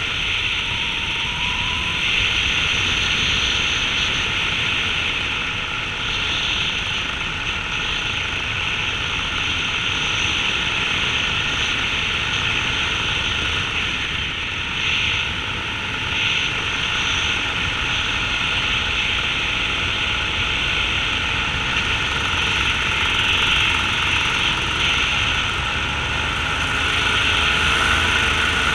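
Steady drone of a small open aircraft's engine and propeller in cruising flight, heard from the pilot's seat, with wind rushing over the microphone.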